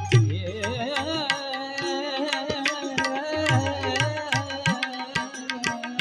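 Gujarati devotional folk music: tabla playing a steady rhythm under one long held melody note that wavers in pitch at first, then settles.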